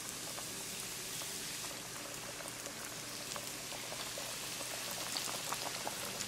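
Coated salmon pieces deep-frying in hot oil: a steady sizzle dense with small crackles and pops as the oil bubbles around the fish.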